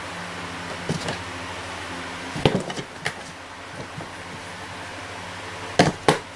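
Cats bumping and knocking a cardboard banana box from inside and on top as they play, a few dull knocks with the loudest two close together near the end, over a steady low hum.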